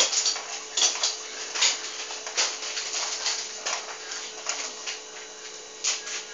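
Mini ceiling fan running unbalanced on a mismatched spare blade: a steady motor hum with a sharp click or tick roughly every second as it wobbles.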